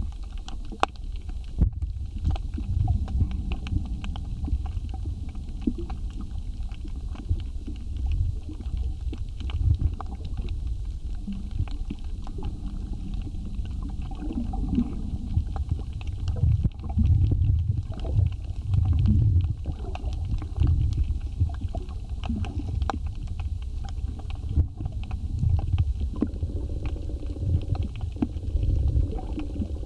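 Underwater reef ambience recorded in the water: a low, uneven rumble of water movement with scattered sharp clicks and crackles throughout. A steady low hum joins near the end.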